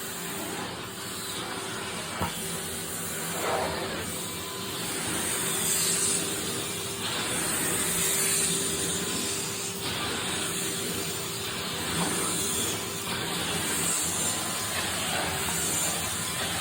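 Vacuum cleaner running over carpet with a steady hiss of suction and a faint hum, its sound swelling and easing as it is pushed back and forth.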